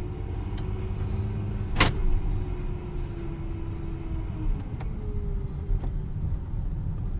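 A 2010 Dodge Journey on the move, with a low rumbling grind and a faint tone over it: the grinding that comes with accelerating or steering, which sounds a lot worse. A single sharp click about two seconds in.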